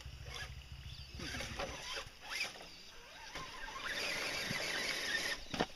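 Radio-controlled off-road truck running, its motor and wheels churning, with faint voices in the background.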